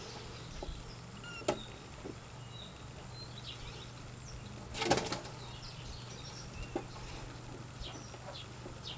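A kitten scuffling with a hand, heard as a brief rustling burst about halfway through, over a quiet background with a steady low hum and faint, scattered bird chirps.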